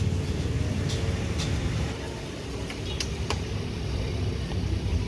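Steady low rumble of road traffic, with a few light clicks and taps from food being handled on the cutting board and plastic box.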